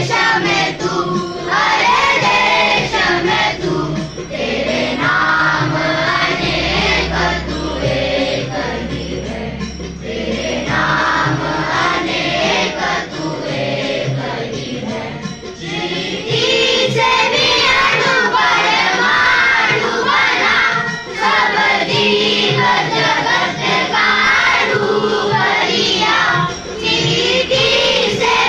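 A large group of children singing a prayer together in unison, with brief pauses between lines.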